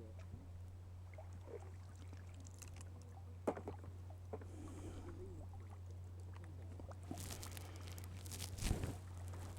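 Light water splashing and trickling, strongest near the end, with a single sharp knock about three and a half seconds in, over a steady low hum.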